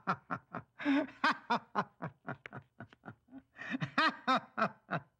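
A person laughing: a long run of short chuckles, about four a second, growing louder again about three and a half seconds in.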